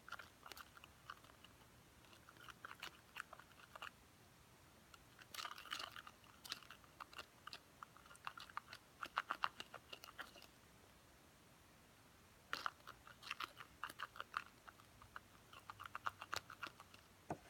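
Glue-and-soap slime mixture being worked by hand, giving faint bursts of rapid crackling clicks in four spells with short pauses between.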